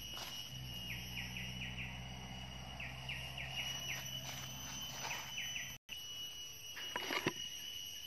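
Night forest insect chorus: a steady high drone with short falling chirps in quick groups of three or four, over a low steady hum. A few rustling knocks about seven seconds in.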